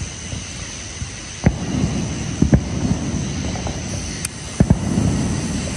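HellCat consumer firework rockets: several sharp pops and bangs over a steady rushing hiss, with close pairs of bangs about two and a half and four and a half seconds in.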